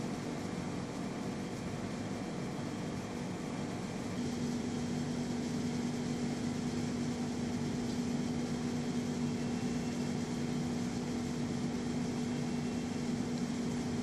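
Steady mechanical hum and hiss of aquarium tank equipment and air handling. A low hum comes in stronger about four seconds in.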